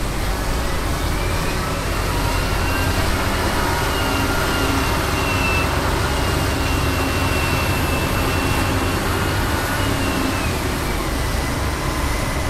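Heavy diesel truck engine running steadily with a low rumble, as on a dump truck working a dirt site. A faint high whine comes in after about a second and a half and fades out near the end.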